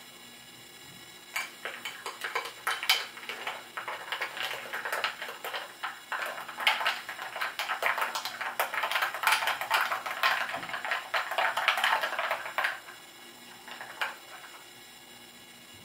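Metal spoon stirring an iced milk coffee in a glass mug, clinking against the glass and the ice cubes in quick, irregular taps. It starts about a second and a half in and stops a few seconds before the end, with a couple of last clinks after.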